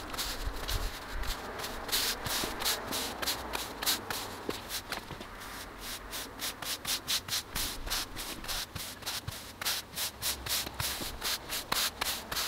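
Stiff-bristled push broom sweeping brush-in jointing compound across wet sandstone paving slabs in quick back-and-forth strokes, about two to three a second.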